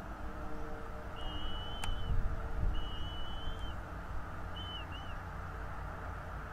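A bird's thin whistled notes, three of them: the first two are level and about a second long, the last short and broken in two. Under them runs a steady low rumble, with one sharp click about two seconds in.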